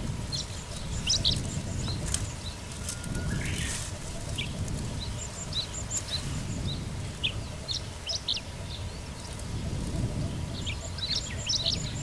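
Chestnut-eared bunting singing: three short, quick phrases of sharp chirping notes, near the start, in the middle and near the end, over a low background rumble.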